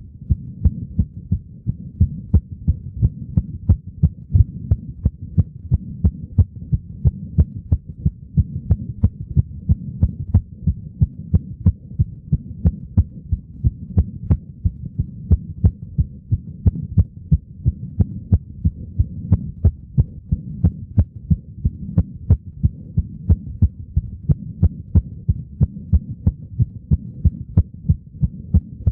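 Fast, steady heartbeat of an eight-year-old girl, quickened by running and jumping around. The beats come in an even rhythm over a low steady hum.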